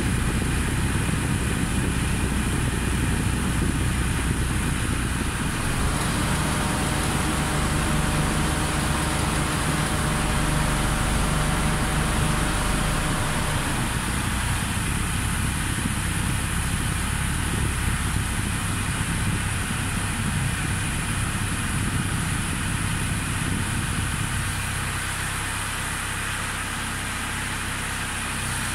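Volkswagen Golf II 1.6 turbodiesel four-cylinder idling with the converted R134a air conditioning running, heard from inside the cabin as a steady engine hum under the rush of air from the vents.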